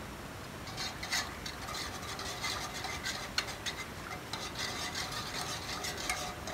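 Wire whisk scraping round and round a saucepan of milk pudding (muhallebi) as it cooks, a fast run of scratchy strokes that starts about a second in. The pudding is whisked without stopping so that it does not go lumpy as it thickens.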